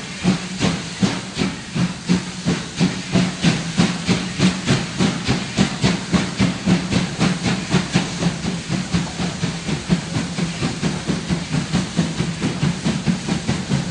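German Class 52 steam locomotive 52 7596, a two-cylinder freight engine, working under steam: a steady train of loud, even exhaust chuffs, three to four a second, over a continuous hiss of steam.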